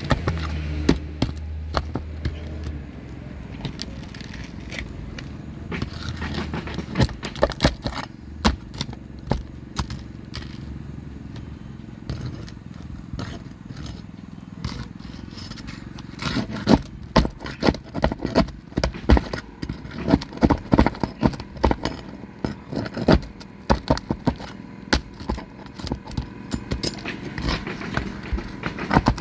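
Roof snake (shingle removal tool) working under asphalt shingles to free them: irregular metallic clicks, scrapes and knocks, coming thicker from about halfway through. A low rumble fades out in the first few seconds.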